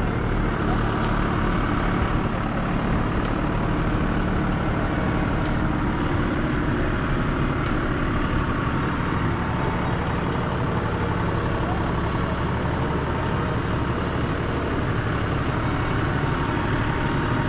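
Tractor's diesel engine running steadily while on the move, with a few short rattles.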